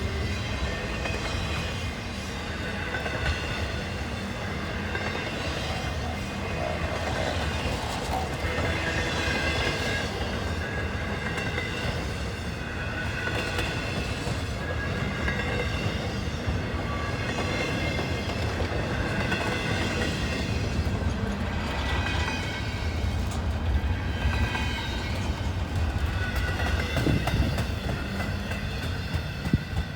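Freight train rolling past: a steady rumble of wheels on rail with clickety-clack. Thin high ringing tones come and go above it, and a couple of sharp clanks sound near the end.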